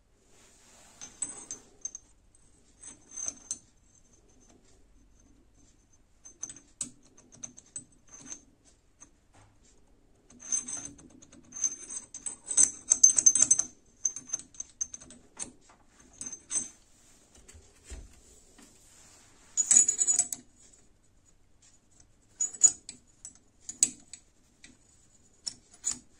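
Steel ISO30 collet clicking and scraping against the bore of a milling machine's high-speed quill as it is pushed in and turned by hand. Light metallic clicks and short rubs come in irregular clusters, busiest around the middle and again about two-thirds through.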